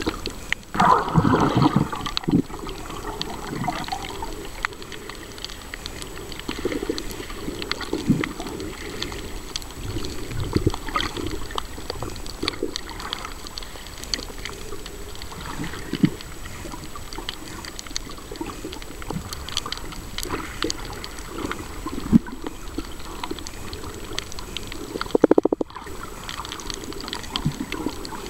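Underwater sound: water gurgling and sloshing, with many scattered short clicks and a louder burst of water noise about a second in and again briefly near the end.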